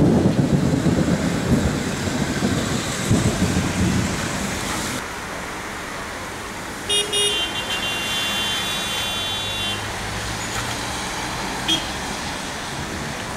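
Thunder rumbling in uneven rolls for the first few seconds, then steady rain. About seven seconds in, a high beeping tone sounds three short times and is then held for about three seconds.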